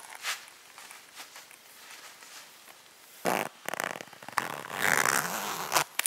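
Red leather boot rubbing and creaking close to the microphone, with the rasp of its metal zipper, in a few loud, noisy stretches starting about three seconds in after a quiet start with small clicks.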